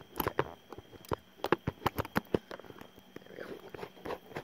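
Handling noise from a phone camera being set up: a quick run of sharp clicks and knocks, then a faint voice near the end.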